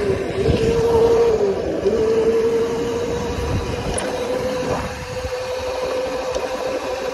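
Electric Razor dirt bike's motor whining steadily while riding, its pitch dipping briefly twice in the first two seconds, over a low rumble from the ride.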